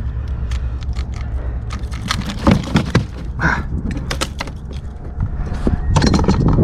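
Irregular metallic clicks and rattles with a few louder knocks: handling of fishing gear and a freshly caught snook aboard a kayak. A steady low rumble runs underneath.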